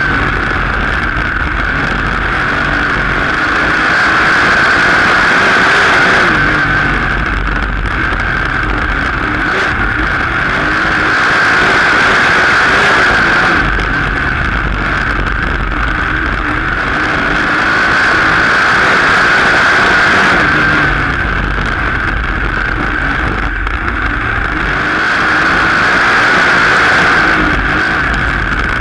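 Open-wheel dirt-track race car's engine, heard from a camera mounted in the cockpit, running hard through laps of an oval. The sound swells and drops about every seven seconds as the driver gets on and off the throttle between straights and corners.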